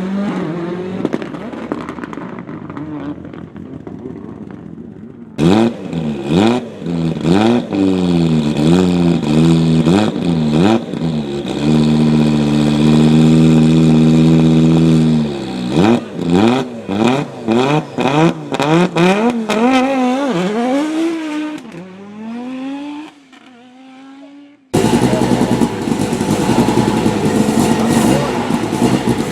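Rally car engines, heard in a series of short cuts. The engines are blipped and revved hard, then held at a steady high rev on the start line. Each car then launches and accelerates away, its pitch rising and dropping back with each gear change before fading out. Near the end a cut brings in another loud, rough-running rally car.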